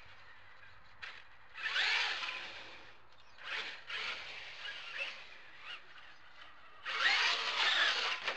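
A Traxxas E-Maxx RC monster truck's brushless electric motor, on a Hobbywing 150A speed controller, whining in short throttle bursts. Its pitch rises and falls, with the loudest bursts about two seconds in and near the end as the truck accelerates over wet pavement.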